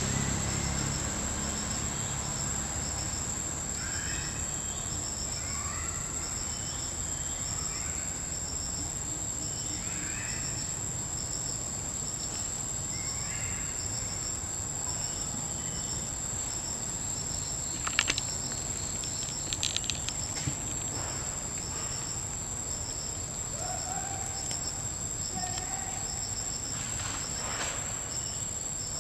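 Forest insects: a steady high-pitched whine with an evenly repeating, pulsing chirp over it. Short rising calls come and go in the first half, and a few sharp clicks sound about two-thirds of the way through.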